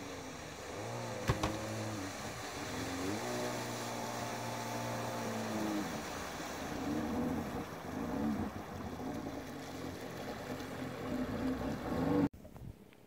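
Jet ski engine running as it approaches across the water, its pitch rising and falling with the throttle and growing a little louder, then cutting off suddenly near the end.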